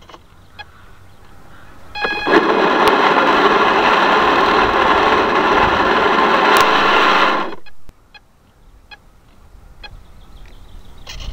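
A small boat motor whirring steadily with water rushing past. It starts about two seconds in and cuts off abruptly just before eight seconds. The stretches before and after are much quieter, with a few faint clicks.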